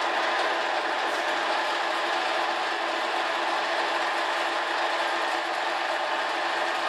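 TV-4 benchtop metal lathe running on its trial run after an apron rebuild: a steady, even whir of spinning gears and drive, with the carriage feeding along the bed under power.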